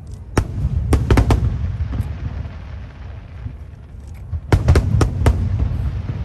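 Aerial fireworks shells bursting in two quick volleys of sharp bangs, the first about half a second in and the second around four and a half seconds in. A low rumble of booms and echoes runs between the volleys.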